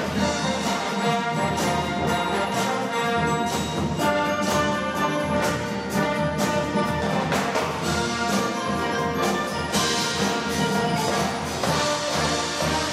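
Marching band playing, brass instruments to the fore over steady percussion strikes; the high end brightens about ten seconds in.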